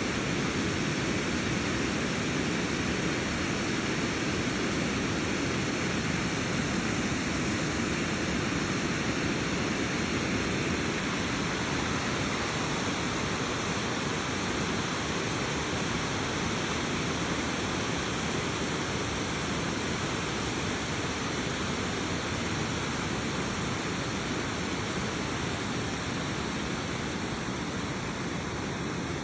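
Steady rush of moving water, an even noise with no distinct splashes or knocks.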